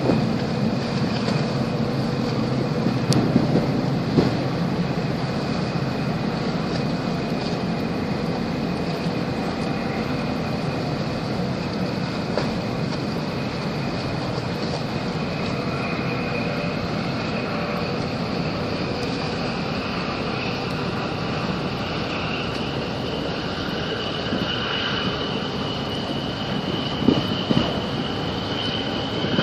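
Steady drone of a boat's engine with water and wind noise, and a faint high whine that climbs slightly in pitch over the second half.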